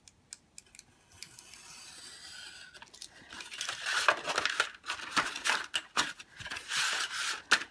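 A craft knife drawn through laid cover-weight paper along a metal straight edge, a steady scratch lasting about two seconds. It is followed by louder, irregular rustling and crinkling of the stiff paper as the sheet is lifted and the cut piece pulled away, with a few sharp clicks as the metal ruler is moved.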